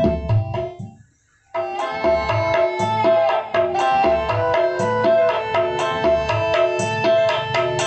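Recorded music with a steady beat of hand drums and plucked strings, playing through the sound system fed by a Soundcraft EPM12 mixer. About a second in the music fades away to near silence, then comes back abruptly half a second later.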